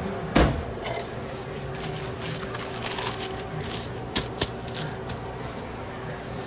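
A sharp knock about half a second in, then quiet handling of bread rolls and wrapping paper, with two short clicks a little after four seconds, over a steady background hum.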